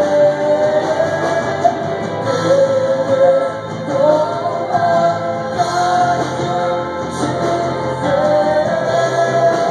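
Live worship band: singers holding long sung notes over acoustic and electric guitar.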